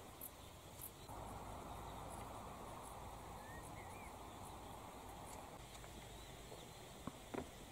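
Faint outdoor ambience: a low, steady rush that swells for a few seconds, with scattered short high ticks and a brief chirp. Two sharp clicks near the end are the loudest sounds.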